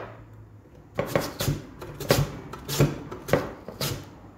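Raw potato being sliced on the slicing blade of a metal box grater: a run of short, quick strokes, about three a second, starting about a second in.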